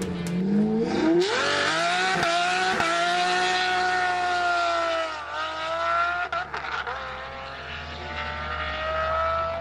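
Ferrari LaFerrari V12 engine revving up hard about a second in and holding a high, steady note. The note dips briefly around five seconds in, then climbs slowly again.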